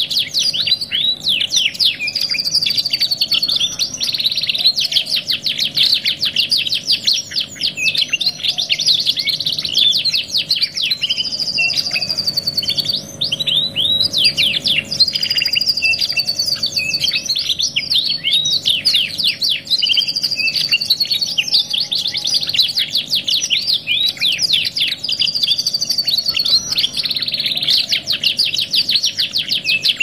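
Domestic canaries singing a continuous, dense song of rapid trills and fast sweeping whistles, without a break.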